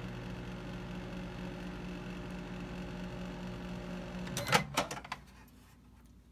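Haier microwave oven running with a steady hum. About four and a half seconds in it stops, and a few sharp clacks come as the door is released and opened.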